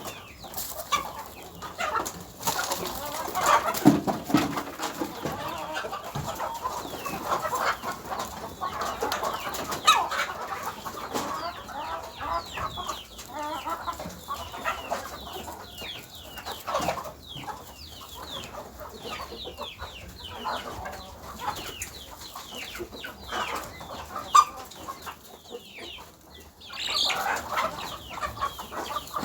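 Chickens clucking and peeping, with many short falling chirps through the middle and scattered clicks and taps.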